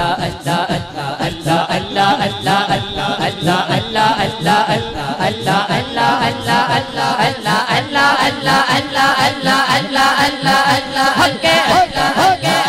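Islamic devotional kalam sung by a male lead voice through a microphone on a public address system, with a chorus of men chanting "Allah" along with him over a steady percussive beat.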